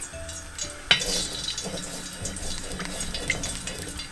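Hot ghee in a pan starts sizzling sharply about a second in, then keeps up a steady frying sizzle, over light jazz background music.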